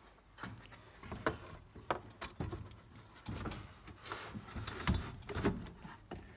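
Scattered knocks, taps and rubbing as a felt-covered center console is handled and pushed into place.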